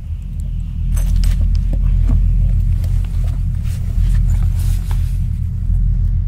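A deep, steady rumble, with scattered clinks and clatters of loose volcanic rock starting about a second in and thinning out near the end.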